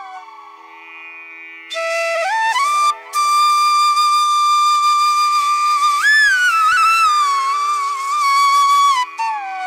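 Flute music: a slow melody of long held notes with slides between pitches over a steady drone, entering after a softer first second or so.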